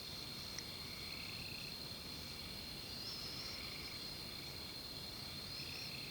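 Steady high-pitched chorus of night insects, with a few faint wavering calls above it.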